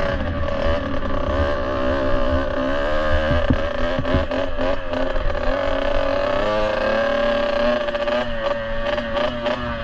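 Kawasaki KX65's small two-stroke single-cylinder engine running under way on the trail, its pitch rising and falling with the throttle, then holding steadier in the second half. A few sharp knocks come through a few seconds in and again near the end.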